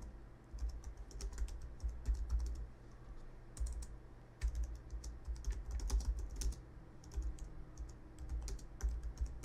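Typing on a computer keyboard: runs of quick keystrokes with short pauses between them, each run carrying a dull low thud.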